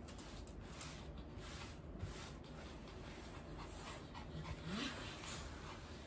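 A small dog whining, a short rising whimper about four to five seconds in, over soft rubbing of a cloth wiping a wooden floor.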